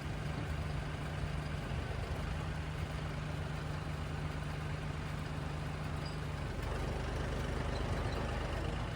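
Farm tractor engine running steadily with a low, even hum.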